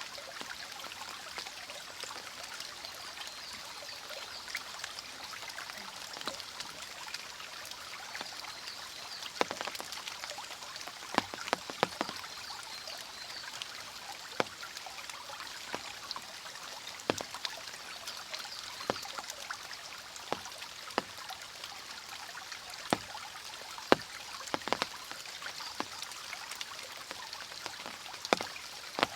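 Steady rush of a mountain stream in the rain, with sharp, irregular drops of water splashing close by.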